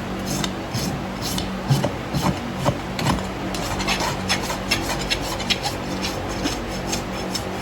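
Farrier's hoof rasp scraping across a horse's hoof wall in repeated short strokes, dressing the hoof after a new shoe has been nailed on.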